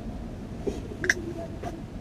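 Three short clicks over a low steady rumble, the loudest about a second in.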